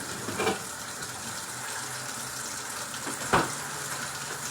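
Kitchen tap running in a steady hiss, with two short knocks or clatters, one about half a second in and a louder one near the end.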